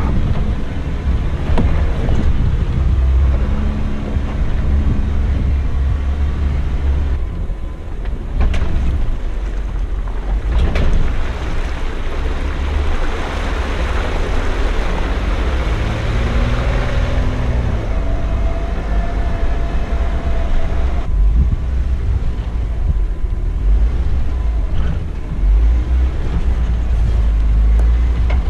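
Off-road Jeep's engine running under load, its pitch rising and falling as it works over the rock, with a couple of sharp knocks and wind rumbling on the microphone.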